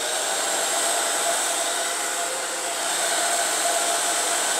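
Handheld hair dryer running steadily, its fan whirring with a faint steady whine.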